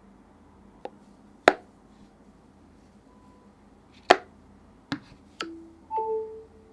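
A phone and its accessories being handled on a table: about five sharp clicks and taps, two of them loud, with a couple of brief steady tones near the end.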